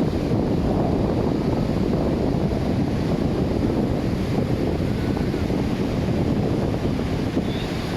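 Wind buffeting the microphone in a steady low rush, with ocean surf washing beneath it.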